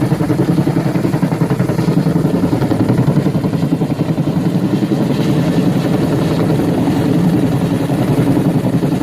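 Bell 212 helicopter running loud and steady, its rotor beating in a fast, even pulse over the low engine sound.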